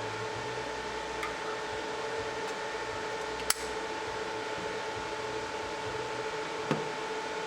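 Zippo-housed butane torch lighter handled: one sharp metallic click about three and a half seconds in and a softer click near the end, with a few faint ticks earlier, over a steady low hum.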